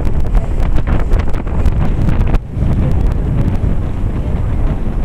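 Wind buffeting the microphone: a loud, gusting low rumble with scattered crackling clicks. It dips briefly about two and a half seconds in.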